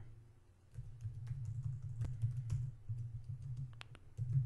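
Typing on a computer keyboard: a run of quick key clicks starting about a second in, over a low steady hum.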